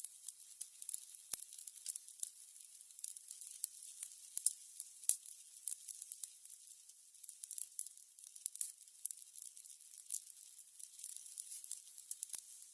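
Burning candles: a soft steady hiss with frequent irregular crackles and pops from the wicks.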